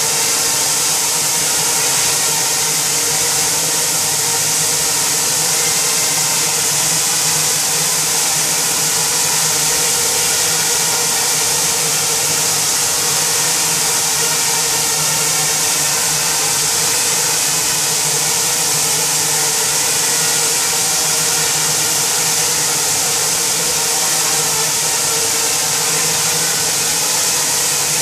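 Propellers of six small quadcopter drones flying together, a steady buzz of several overlapping tones with a strong hiss above it.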